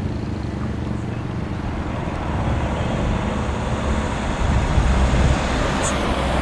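Motor vehicle engine running steadily, growing louder a little past the middle.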